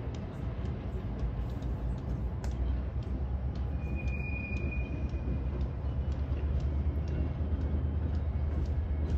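Distant rail-yard noise: a steady low rumble of freight trains and cars moving through a large classification yard, with faint ticks and a brief high-pitched squeal about four seconds in.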